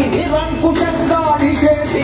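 A song: a singing voice carrying a melody over instrumental accompaniment.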